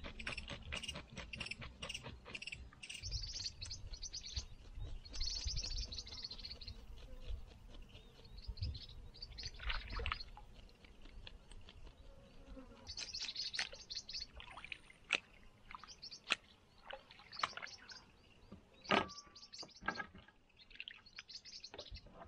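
A peacock bass being cleaned by hand in shallow water: irregular scraping clicks and small splashes. Birds chirp through it.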